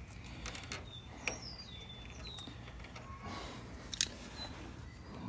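Scattered light clicks and taps of hand tools and metal parts being handled while wiring a mower's starter solenoid, with one sharper click about four seconds in.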